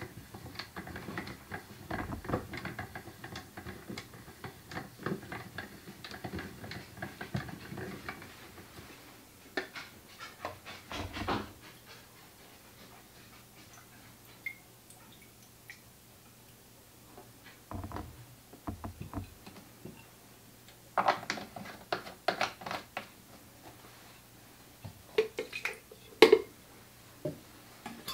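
Plastic film-developing tank being agitated by twisting its agitation rod back and forth, the reel inside making a quick run of small clicks and rattles for about the first nine seconds. Later come scattered knocks and a clatter of plastic bottles and measuring jugs being handled.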